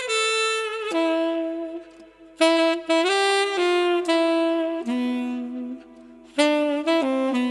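Background music: a solo saxophone-like melody played in short phrases of held and stepping notes, with brief pauses between the phrases.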